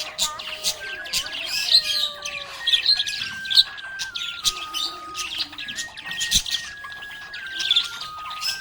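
Budgerigar chirping and warbling in quick, busy runs of short calls. Behind it a simple tune of held, evenly stepping notes plays, with a single knock about six seconds in.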